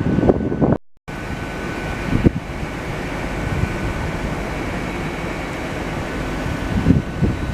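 Wind buffeting the microphone in gusts over a steady background hum with a faint high whine. The sound drops out for a moment about a second in.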